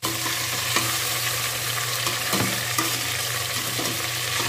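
Meat sizzling as it fries in oil in an aluminium pot, stirred with a spatula that scrapes and clicks against the pot now and then.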